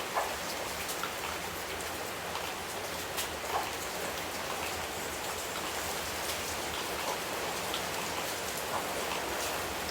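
Steady rain falling on a surface, an even hiss with scattered louder individual drops.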